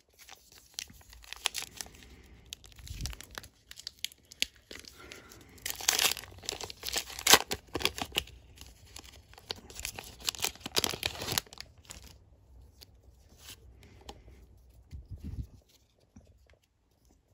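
Foil booster pack wrapper of Pokémon trading cards being torn open and crinkled. The rustling is loudest in two spells, about six and ten seconds in, before dying down to faint handling clicks.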